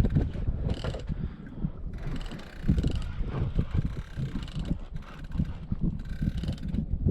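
Fishing reel being worked, a mechanical ratcheting and rattling over a continuous low rumble.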